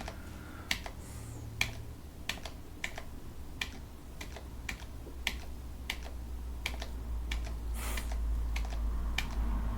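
Irregular single clicks of computer keys or mouse buttons, roughly one or two a second, over a low steady hum.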